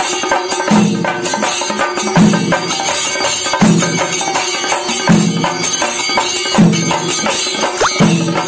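Kerala chenda ensemble: chenda drums beaten with sticks in a fast, dense rhythm with ilathalam hand cymbals clashing, and a deeper stroke landing about every second and a half.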